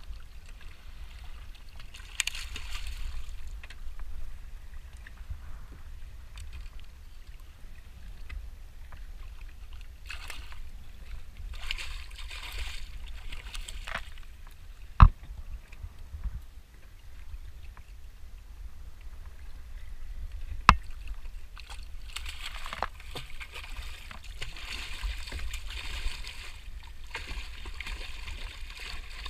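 Water splashing and sloshing beside a kayak in bursts as a hooked fish thrashes at the surface around the float, over a steady low rumble. Two sharp knocks, about six seconds apart, come midway.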